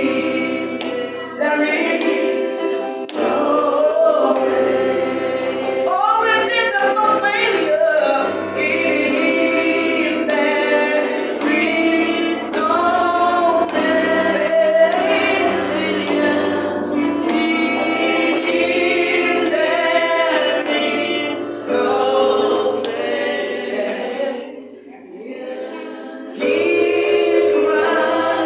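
Several voices singing a gospel hymn together with instrumental accompaniment. The singing drops to a brief lull near the end, then comes back in at full volume.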